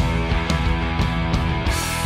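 Rock music with a steady beat, about two hits a second.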